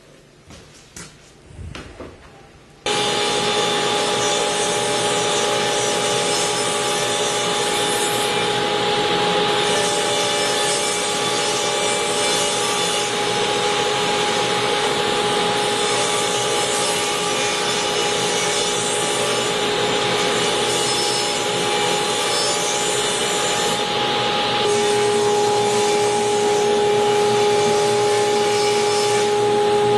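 A few faint knocks, then a table saw running steadily with a constant whine as a wooden board is ripped lengthwise along the fence; the sound shifts slightly about 25 seconds in.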